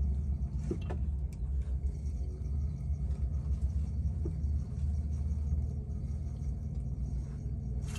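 Steady low rumble of wind on the microphone while a spinning reel is cranked through a slow retrieve, with a few faint clicks.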